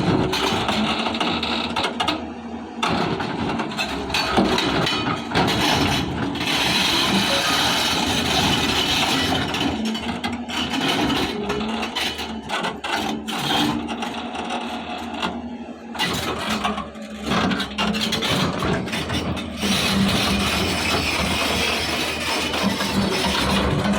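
Hyundai excavator's diesel engine working steadily under load while it pushes a large boulder, a dense mechanical din that dips briefly a few times.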